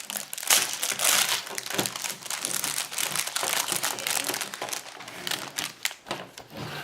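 Toy kit packaging crinkling and crackling as it is handled and opened by hand, dense for most of the time and thinning to a few scattered crackles near the end.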